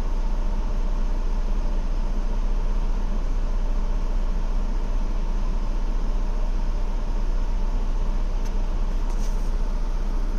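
2016 Ford Explorer Limited's engine idling steadily with a strong low rumble, an idle the owner calls rough.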